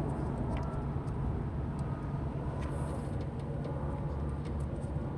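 A running engine with a steady low hum, with a few faint light clicks over it.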